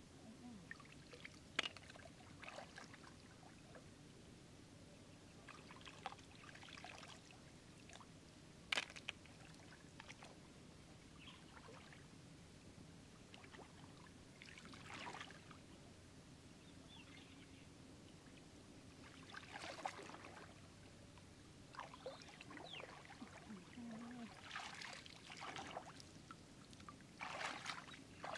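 Shallow muddy water faintly sloshing and trickling as hands grope through it and legs wade, in short irregular splashy spells, with a couple of sharp clicks.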